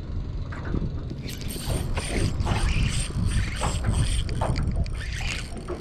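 Fishing reel being wound to retrieve a cast lure: the handle and gears turning with a steady mechanical whirr and fine clicking.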